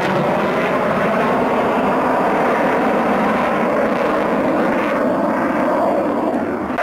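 A Belgian F-16 fighter's Pratt & Whitney F100 turbofan heard from the ground in flight: steady, loud jet noise. Over the last two seconds a whine falls in pitch.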